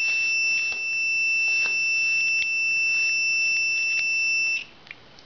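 Multimeter continuity beeper sounding one steady high-pitched tone, which shows a closed circuit through the ignition switch contacts. It cuts off suddenly about four and a half seconds in as the circuit opens, with a few light clicks of handling underneath.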